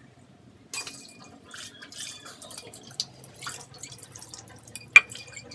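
Tap water running and splashing as kitchenware is rinsed at a sink, with small knocks throughout and one sharp clink about five seconds in.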